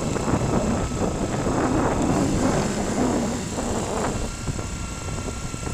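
Motorcycle being ridden along a street: the engine runs under a steady rumble of wind on the microphone.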